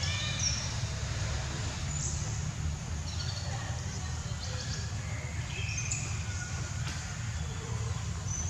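Birds chirping: short high calls scattered through, over a steady low rumble.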